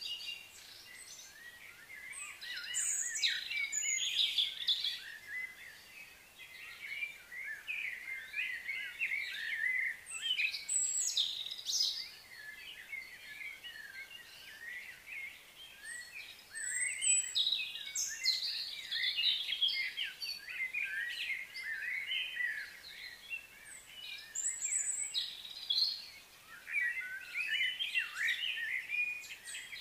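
Small birds chirping and twittering in bouts of a few seconds, with quieter gaps between bouts.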